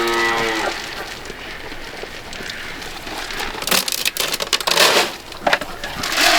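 Steady rain falling and spattering, with the end of a long, steady animal call in the first moment. A few seconds in, several sharp crunching knocks sound in quick succession.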